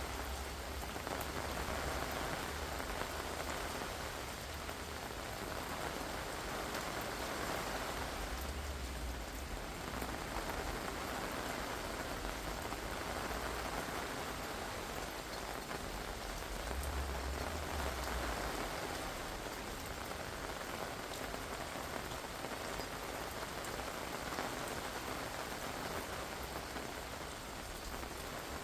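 Heavy rain falling steadily, a dense even hiss of water pouring down and hitting surfaces, with a low rumble coming and going underneath.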